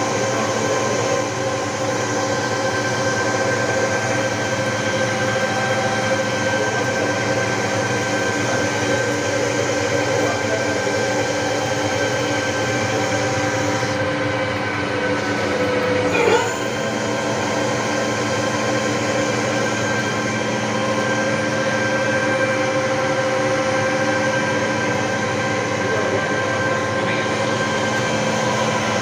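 Steady mechanical drone of a running CNC machine, made of several steady tones, with a brief louder swell about halfway through.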